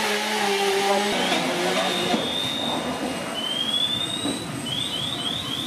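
Fire apparatus engines and pumps running at a fire scene. A steady hum gives way about a second in to a rougher, noisier rumble, with a few short, high rising tones near the end.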